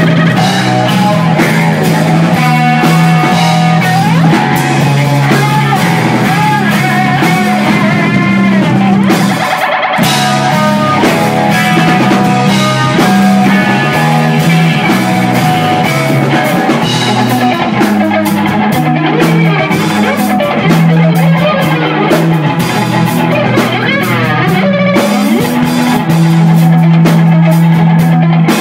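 Live math rock band playing loudly: electric guitar run through a board of effects pedals, with drum kit and cymbals. The guitar has several sliding notes, and there is a brief stop about ten seconds in.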